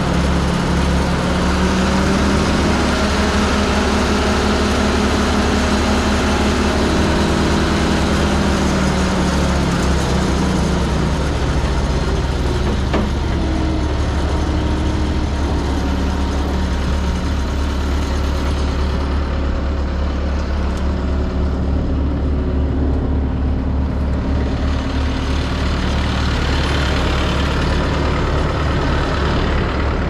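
Bandit wood chipper's engine running steadily with a loud low hum, its pitch drifting slightly up and down in the first ten seconds or so.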